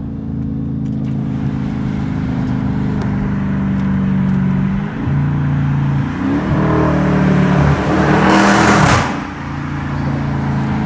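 The 5.7-litre HEMI V8 of a 2016 Dodge Challenger R/T heard from the cabin while slowing and downshifting, its exhaust note changing pitch several times. About eight seconds in comes a loud rush of noise lasting about a second.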